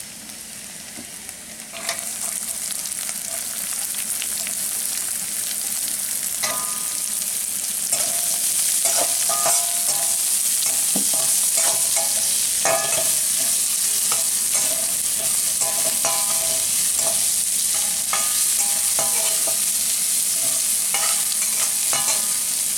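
Chopped onion sizzling in hot oil in a metal kadai. The hiss jumps up about two seconds in, as the onion goes into the oil, and then keeps going. A metal spatula stirs the onion, scraping against the pan again and again.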